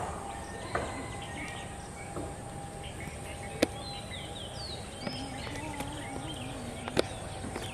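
Rural outdoor ambience: small birds chirping and calling over a steady background hum, with a few sharp clicks.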